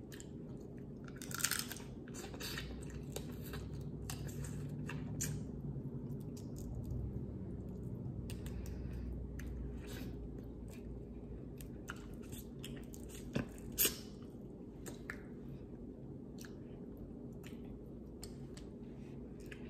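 Close-up chewing and mouth sounds of a person eating boiled shrimp, with small clicks and crackles as the shells are peeled by hand. A louder crack comes about a second and a half in, and two more just after thirteen seconds, over a steady low hum.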